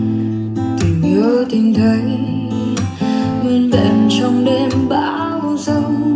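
A song with acoustic guitar and a sung melody, played back through a powered speaker during a speaker sound test.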